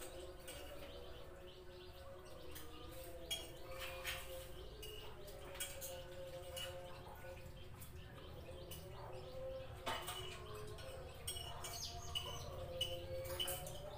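Metal spoons clicking and scraping against plates as several people eat, in scattered light clinks.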